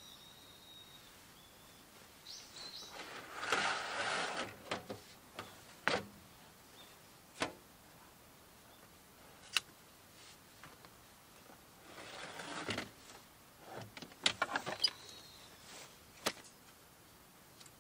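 A flat metal camp table top and its folding metal leg frame being slid out of a van's cargo bay: two scraping slides, each lasting about a second and a half, with sharp metal clicks and knocks in between and after.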